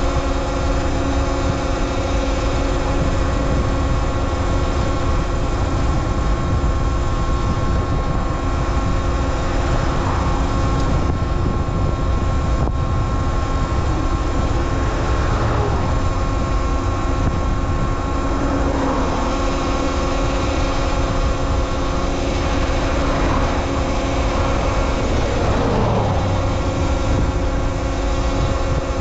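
Talaria Sting R MX4 electric dirt bike being ridden: a steady motor whine with pitch that rises and falls several times as the speed changes, over a constant low rumble.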